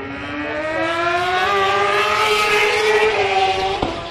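A 1000 cc Superbike racing motorcycle accelerating past. Its engine note rises steadily in pitch and grows louder for about three seconds. Near the end a sharp click comes, and the sound quickly falls away.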